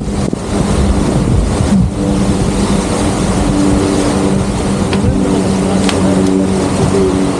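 Wind buffeting the microphone and water rushing past a sailing yacht under way, with a low, uneven hum running underneath.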